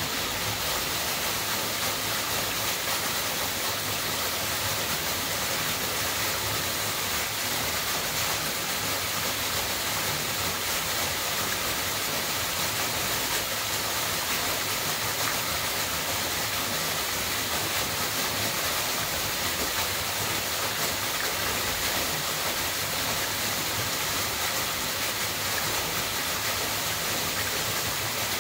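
A narrow waterfall pouring down a rock face and splashing into a shallow pool: a steady, even rush of water.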